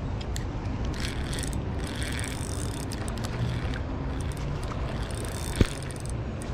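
Spinning reel being cranked by hand, winding in line with faint mechanical clicking over a steady low rumble. One sharp click stands out about five and a half seconds in.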